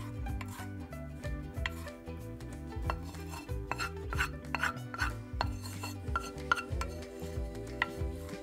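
Wooden spatula scraping thick oat porridge out of a non-stick pan into a glass dish: irregular scrapes and wet scoops with a few sharper knocks of the spatula against the pan. Soft background music runs underneath.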